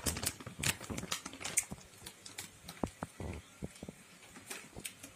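Scattered light clicks and taps at an irregular pace, a few more in the first second or so, then sparser.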